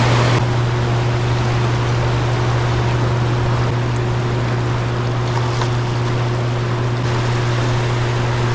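Steady, loud rushing of a large volume of water released through fully opened gates, with a strong low hum underneath.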